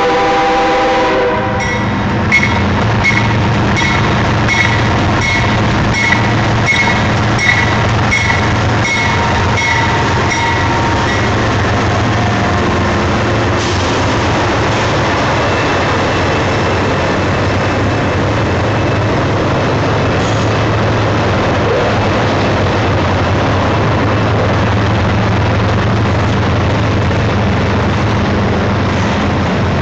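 Union Pacific freight train passing close by: the locomotive horn chord cuts off about a second in, then a bell rings about twice a second until roughly eleven seconds in, over the steady low rumble of the diesel locomotives and the double-stack container cars rolling past.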